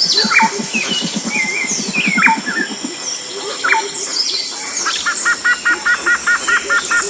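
Tropical forest ambience: many birds whistling and chirping over a steady high insect drone. A fast, low pulsing call runs through the first three seconds, and a rapid string of repeated calls, about six a second, fills the last two seconds.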